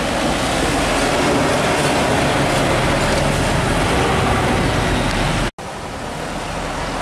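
Diesel engine and tyre noise of a heavily loaded light truck passing close by, over steady road traffic. About five and a half seconds in, the sound cuts out for an instant, then road traffic carries on a little quieter.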